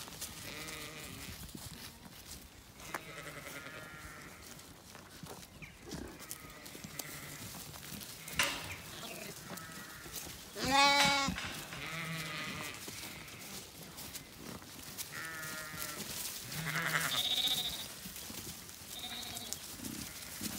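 Zwartbles sheep bleating again and again, with one long, loud bleat about halfway through.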